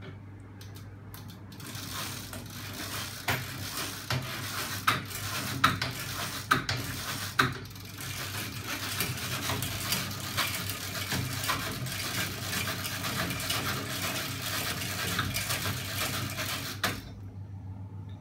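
A home-built magnet-assisted engine rig runs: aluminium linkages, spring-loaded rocker arms and a roller chain make a steady metallic clatter with several sharp knocks in the first few seconds, under a low electric hum. The clatter cuts off suddenly near the end, leaving only the hum.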